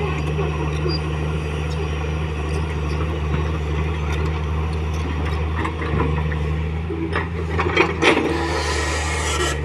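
Komatsu PC200 hydraulic excavator's diesel engine running steadily as the boom and bucket swing. About eight seconds in, the bucket comes down on the loose soil with a few knocks and scrapes.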